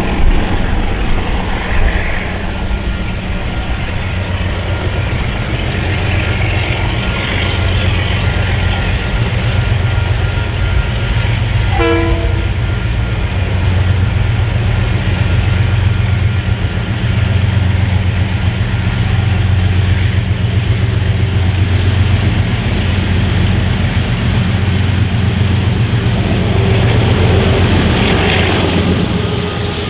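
KiwiRail DX-class diesel-electric locomotives hauling a heavy freight train, their engines working hard in a high notch with a deep, steady rumble that grows louder as they approach. Near the end they pass close by, with the sound of wheels on rail.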